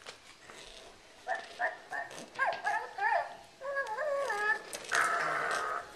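Dog yips and whines: a run of short high calls sliding up and down in pitch starting about a second in, then a longer held call near the end.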